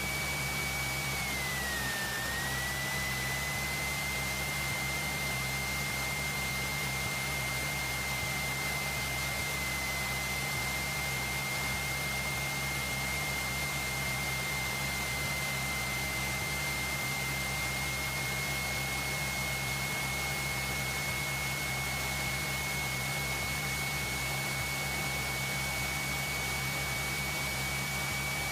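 Cessna 172 piston engine running steadily at taxi power, a constant drone with a thin high whine above it that dips briefly about two seconds in.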